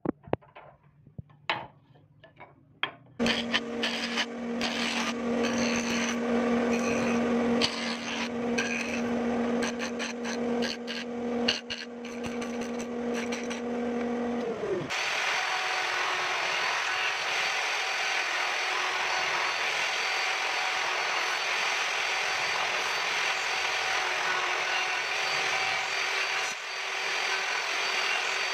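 A few light knocks of wood handled on a bench, then an electric jointer-planer running with a steady hum as it cuts a strip of wood. About halfway through, the hum cuts off and an upside-down mounted electric router runs steadily while it shapes the edges of the wooden handle.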